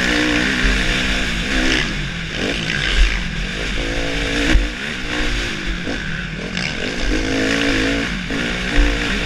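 Suzuki motocross bike's engine heard from the rider's helmet, its pitch climbing and dropping several times as it is revved hard and eased off along a dirt track. There is a low rumble of wind on the microphone and a few sharp knocks from bumps in the ruts.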